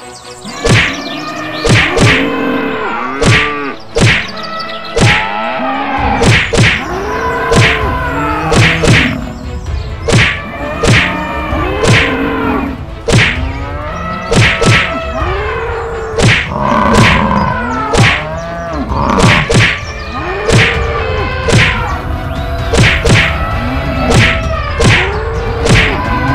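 Cartoon fight sound effects: a quick series of whacks and thuds, more than one a second, mixed with repeated bellowing animal calls that rise and fall in pitch. A low rumble joins about six seconds in.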